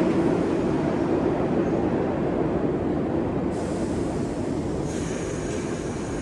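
R62A subway train running on the track, a steady rumble that slowly fades as it moves away. A faint high-pitched whine joins near the end.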